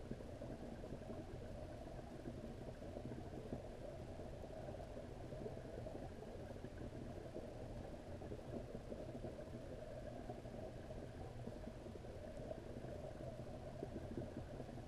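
Steady, muffled underwater rumble and crackle of pond water picked up by a submerged camera, with no clear events standing out.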